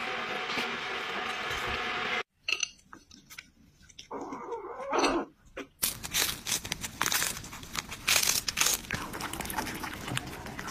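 Cats chewing and gnawing on food, with rapid crunching and clicking that is densest in the second half. A steady rushing background fills the first two seconds and cuts off abruptly.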